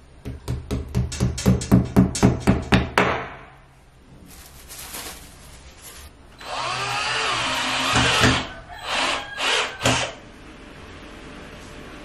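A hammer tapping a steel shelf bracket into a slotted wall rail, about a dozen quick knocks at roughly four a second. A power drill then runs for about two seconds with its pitch rising and falling, followed by three short trigger bursts.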